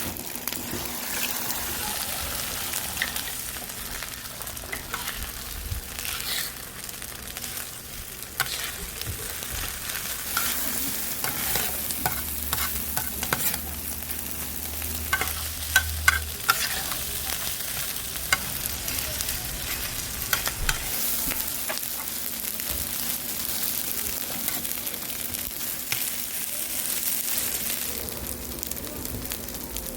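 Food sizzling on a large, very hot iron griddle while it is stirred, with a steady frying hiss and frequent sharp clicks and scrapes of the stirring, a few louder ones near the middle.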